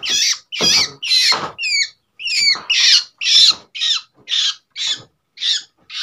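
Young long-tailed shrikes (cendet) calling: a quick run of short, loud calls, about two to three a second, some with falling notes.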